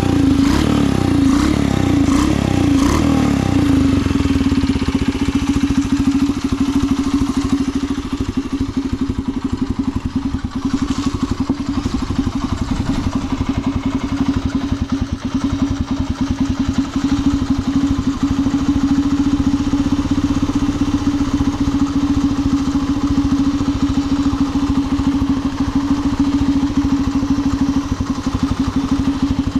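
Bored-up Honda Magna 50's small single-cylinder four-stroke engine, its revs falling back over the first few seconds and then settling into a steady idle. It runs without abnormal noise, as the seller describes it.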